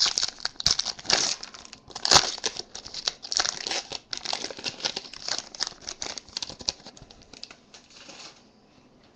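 Foil trading-card pack wrapper being crinkled and torn open by hand, an irregular crackling with sharper rips. It dies away about a second before the end.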